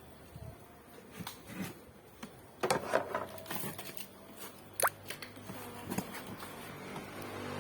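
Hard plastic chair being handled and rubbed by hand: scattered light knocks and scraping sounds, with one short rising squeak a little before the five-second mark.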